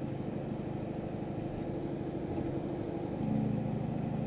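Turbocharged Chevrolet Silverado's engine and lightning-style double-exit exhaust running steadily at road speed, heard from inside the cab. About three seconds in, the note changes and gets louder, as with a change of throttle.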